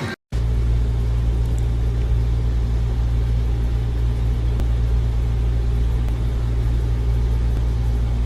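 Steady, loud low rumble with no clear pitch or rhythm, starting abruptly after a brief silence at the very beginning.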